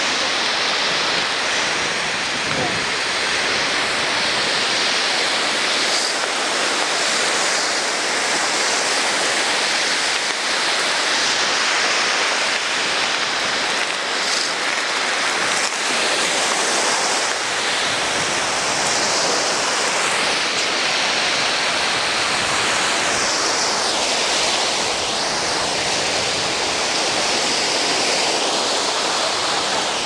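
Sea surf breaking and washing up a sandy beach: a steady, loud rush of waves from a rough sea after a storm.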